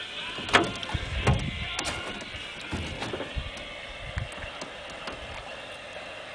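Handling noises in a small boat as a bass is lowered over the side and released: a sharp knock about half a second in, then several more knocks and low bumps over the next three seconds, with light water sounds. Faint music plays underneath.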